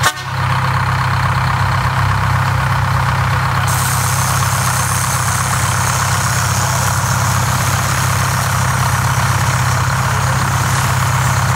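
Small narrow-gauge locomotive engine running steadily at idle, a deep, even hum. A steady hiss joins in about four seconds in.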